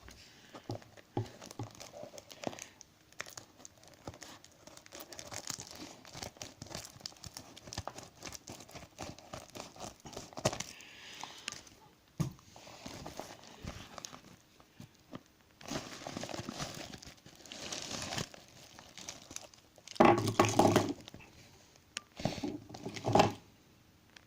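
A parcel being unwrapped by hand: packaging crinkling and tearing, with rustling and small handling clicks throughout and two louder bursts near the end.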